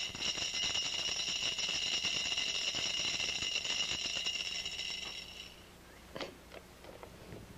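Spin-cast tripod deer feeder throwing feed: the spinner motor whines steadily while the feed rattles off the spin plate. It cuts off about five and a half seconds in.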